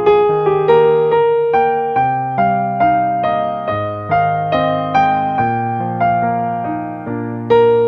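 Slow, gentle keyboard music in a piano or electric-piano tone. Melody notes fall about twice a second, each fading away, over held bass notes that change every couple of seconds, with a stronger note near the end.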